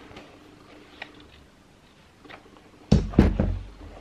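Handling noise from a pair of trainers being turned over in the hands: faint ticks and rustles, then three or four heavy thumps close together about three seconds in.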